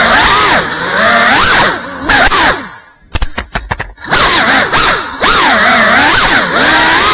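Brushless motors and ducted propellers of a GEPRC CineLog35 cinewhoop whining, the pitch rising and falling with the throttle, heard close up from the onboard camera. About three seconds in the whine drops away for about a second, broken by a few short blips, then comes back.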